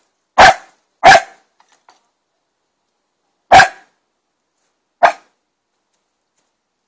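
A dog barking: four loud single barks, two in the first second or so, then one about three and a half seconds in and a shorter one about five seconds in.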